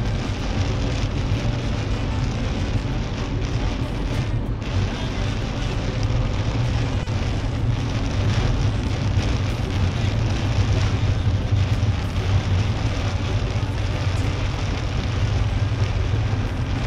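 Steady in-cabin noise of a Mercedes-Benz C-Class driving in heavy rain: rain pattering on the roof and windscreen over a low drone of tyres on the wet road.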